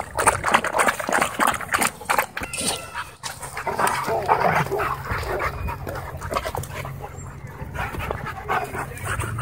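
Dogs lapping water from a plastic bowl, a rapid run of wet laps, then dogs vocalizing as they rear up and play-wrestle from about four seconds in.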